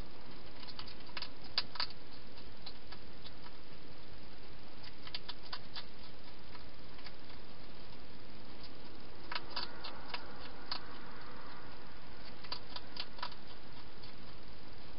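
European hedgehog eating from a bowl inside a plastic feeding box: small clicks and crunches of chewing come in short bunches, the loudest a second or so in, over a steady hiss.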